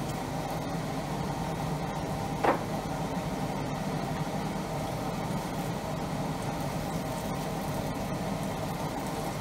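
Steady kitchen hum and hiss while green beans, onions and carrots cook in stock in a wok on a gas burner, with one sharp clack about two and a half seconds in.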